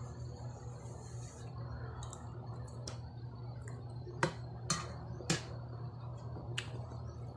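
Mouth sounds of someone chewing a mouthful of food: several sharp wet clicks and lip smacks around the middle. A steady low hum runs underneath.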